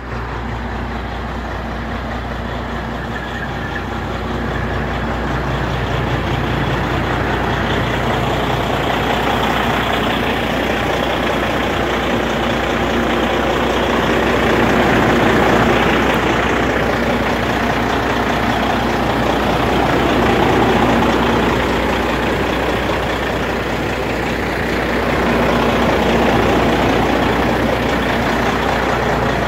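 International dump truck's diesel engine idling steadily, swelling slightly in loudness a few times.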